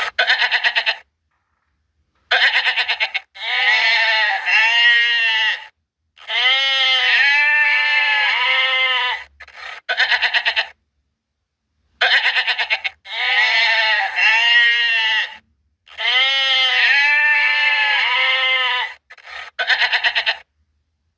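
Goats bleating: a run of separate wavering calls, some short and some drawn out over two or three seconds, with dead silence between them. The same run of calls comes round again about ten seconds later.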